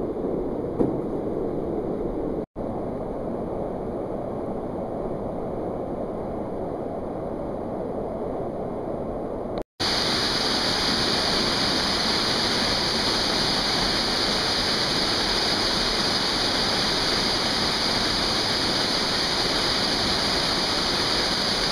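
A waterfall pouring down a rock chute into a pool, a steady rush of water. It drops out for an instant twice, and from about ten seconds in it is louder and brighter.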